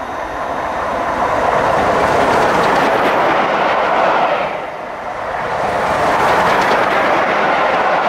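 LMS Stanier Black Five 4-6-0 steam locomotive No. 44932 running through with a coach: a loud, steady rush of wheels on the rails with some clickety-clack. It swells as the train passes, dips briefly about halfway and swells again.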